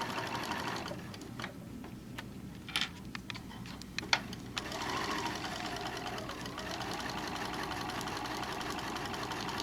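Sewing machine stitching a seam. It eases off for a few seconds about a second in, with a few sharp clicks, then runs steadily again.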